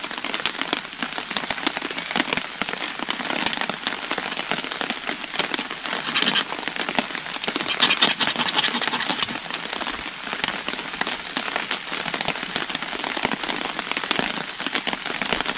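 Heavy rain falling steadily on the forest floor and leaves: a dense patter of countless small drops.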